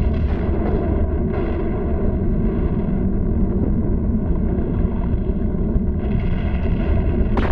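Steady deep rumbling of an erupting volcano, a cartoon sound effect, with a single sharp crack near the end.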